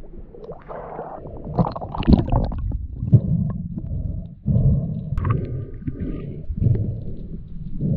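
Muffled underwater water noise on a camera housing: splashing for the first few seconds as it goes under, then gurgling and sloshing in a regular pulse, about three every two seconds.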